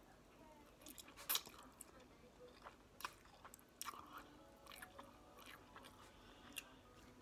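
A person chewing a mouthful of hibachi noodles and fried rice close to the microphone: soft wet mouth sounds with scattered sharp clicks, the loudest about a second in.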